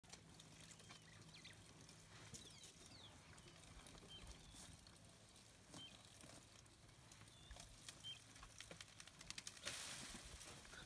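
Faint rustling of acacia branches with scattered clicks and patter of falling acacia pods as elephants feed. Near the end a denser burst of rustling and pattering comes as a branch is pulled down and pods rain onto the ground. A faint low hum fades out midway.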